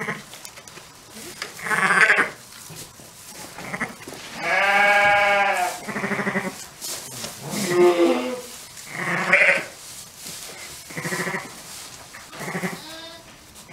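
Ewe and newborn lambs bleating repeatedly: about eight calls, the longest a drawn-out bleat about four and a half seconds in.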